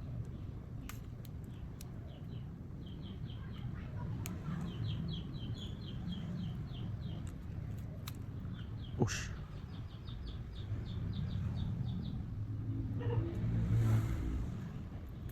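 Bird chirping in quick runs of short repeated notes, with a few sharp clicks and a low hum underneath.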